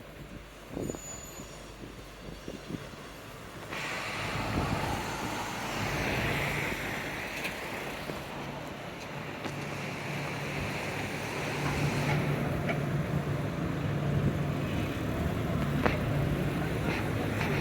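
Street traffic: a motor vehicle's engine running close by with a steady low hum, the noise swelling about four seconds in and growing louder again past the middle.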